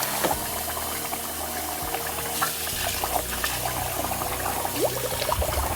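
Tap water running steadily into a pot of rice as the rice is washed.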